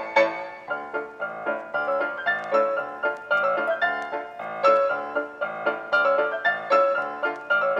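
Background music: a bright piano tune, notes struck in a quick, even rhythm.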